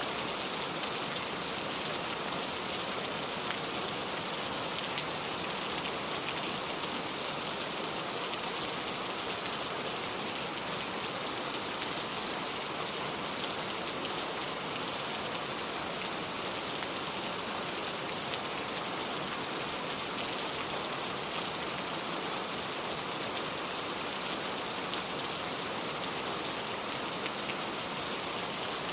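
Heavy rain pouring steadily, a dense even hiss of falling water with many fine drop ticks, at an unchanging intensity.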